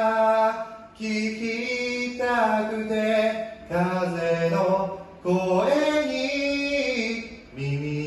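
A man singing a slow melody in long held notes, phrase after phrase with short breaks between.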